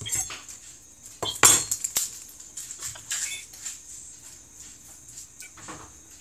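Kitchen clatter: dishes and utensils knocked and handled, a series of sharp clinks and knocks, loudest about a second and a half in.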